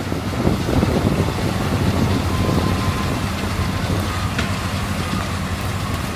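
Combine harvester running: a steady diesel engine drone with the noise of its working machinery.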